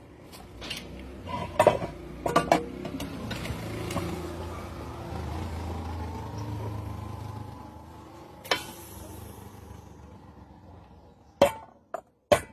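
Metal pressure cooker parts being handled: a series of sharp clinks and knocks, with a stretch of low rubbing or scraping in the middle and two quick knocks near the end.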